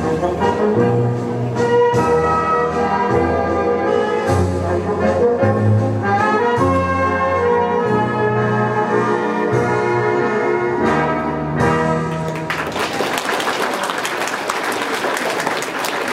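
Brass-led orchestral dance music over a stepping bass line. From about twelve seconds in, a dense patter of noise covers the upper range while the music carries on underneath.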